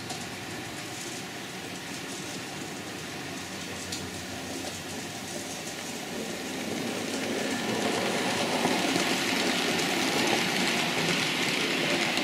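TT-scale model train, a diesel locomotive hauling tank wagons, running along the track with a steady rolling sound that grows louder from about seven seconds in as the train nears.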